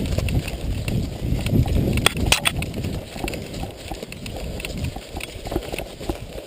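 Footsteps of someone moving quickly over outdoor ground, an uneven run of low thuds, with a few sharp snaps about two seconds in.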